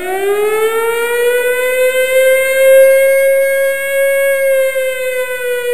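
Air-raid siren winding up in a rising wail. It holds its pitch for a couple of seconds, then begins to wind down slowly near the end.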